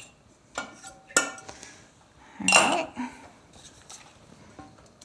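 Metal spoon clinking and scraping against a stainless steel mixing bowl and a glass jar while butter is spooned in: a few separate ringing clinks, the loudest about two and a half seconds in.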